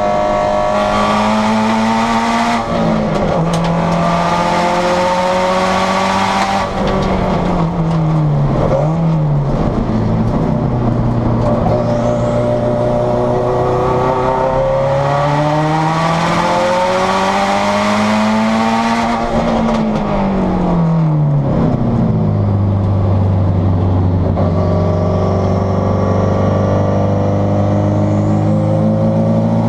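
Interior sound of a roughly 514 wheel-horsepower Subaru STi race car's turbocharged flat-four engine on a hot lap. The engine note climbs under acceleration and drops when the car brakes and shifts, falling sharply about two-thirds of the way through and then holding at a lower, steady pitch. It sounds loud inside the stripped, caged cabin.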